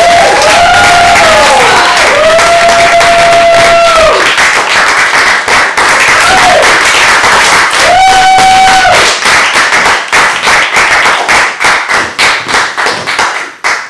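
Audience applauding and cheering, with several long whoops in the first half. The applause thins to scattered claps and dies away near the end.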